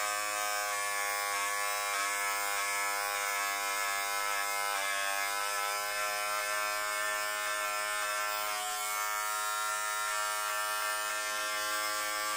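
Electric hair clipper running with a steady, even-pitched buzz as it is drawn through hair.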